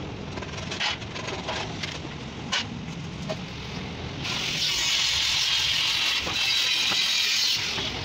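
A couple of knocks, then a steady rasping hiss for about three seconds: the sheet-metal outer casing of a water heater sliding down over the tank's fibre insulation wrap.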